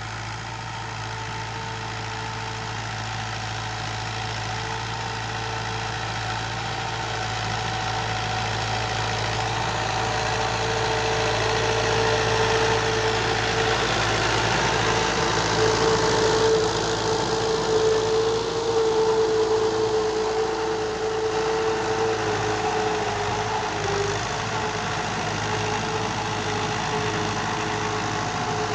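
Fiat 640 tractor's diesel engine running steadily under load while pulling a disc harrow. It grows louder as the tractor comes close, loudest a little past halfway, then eases off slightly.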